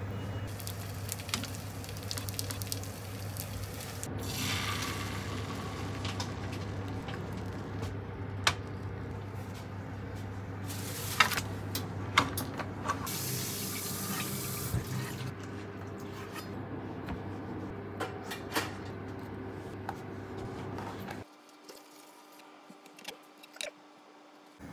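Kitchen tap running in short spells, with scattered clinks of dishes and utensils, over a steady low hum that cuts off suddenly near the end.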